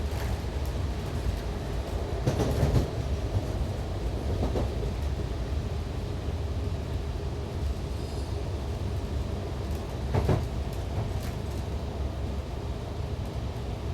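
Diesel railcar heard from the driver's cabin: a steady low engine and running rumble on the rails, with louder knocks and rattles from the track about two and a half seconds in and again at about ten seconds.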